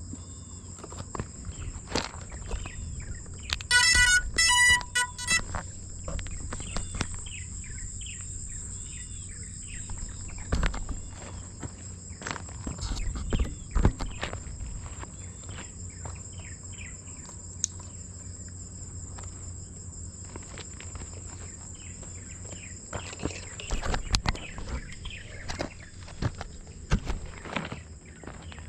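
Insects trilling steadily at two high pitches, with small repeated chirps over them. A quick series of electronic beeps comes about four seconds in, and scattered knocks and footsteps on gravel come close by.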